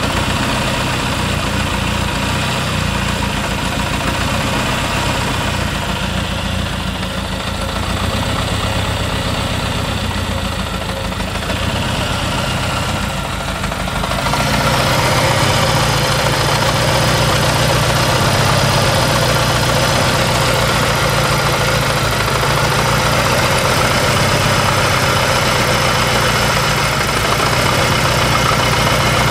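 Saab 9-3's Ecopower turbocharged four-cylinder engine idling steadily, filmed for an engine problem. About halfway through it gets louder and brighter, heard close over the top of the engine near the oil filler.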